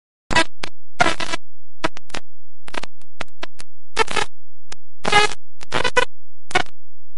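A boy's voice, singing or vocalising, recorded through a badly overloaded microphone, so it comes out as short, harsh, distorted bursts at irregular intervals over a faint low hum.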